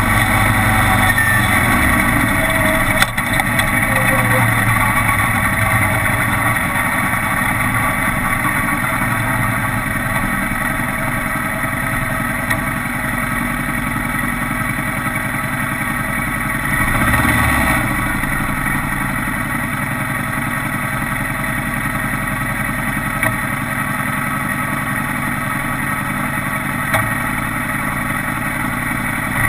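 Kawasaki Vulcan 900 V-twin running steadily while riding, under a constant rush of wind noise on the camera microphone. There is a short click about three seconds in and a brief swell in the engine sound around the middle.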